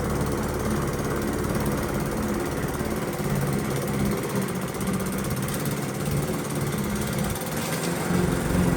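Lawn mower engine running steadily, a constant low engine hum.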